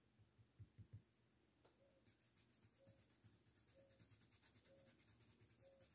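Faint, quick, rhythmic tapping of a paintbrush dabbing paint onto cotton fabric, several strokes a second, starting a couple of seconds in after a few soft thumps.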